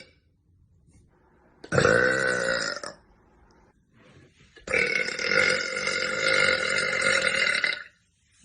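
A young woman burping twice: a short burp with a falling pitch about two seconds in, then a long, drawn-out burp of about three seconds.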